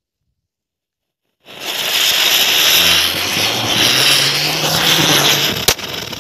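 A chakri (ground spinner firecracker) catches after about a second and a half of silence and hisses loudly as it spins and throws sparks. Near the end comes a single sharp crack, then quieter rapid crackling.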